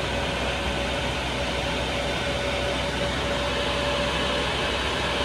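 Chinese diesel heater running flat out on its highest setting, its fan blowing hot air with a steady rushing noise and a steady whine. It is burning and heating normally again after a glow plug replacement cleared its E-3 error.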